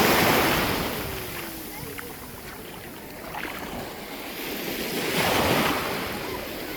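Ocean surf washing up on the beach, with two surges: one at the start and another about five seconds in.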